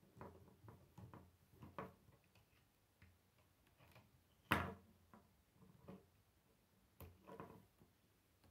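K'nex plastic rods and connectors clicking together as they are pressed into place by hand: a run of small clicks, with one sharp snap about four and a half seconds in and another near seven seconds.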